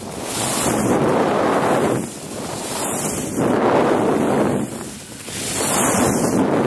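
Skis carving turns on snow: a rushing scrape of the edges that swells and fades with each turn, three times.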